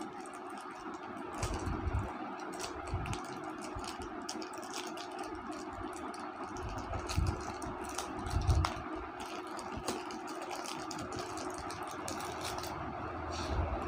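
Light clicks and clatter of small batteries and packaging being handled over a steady background hum, with a few low thuds.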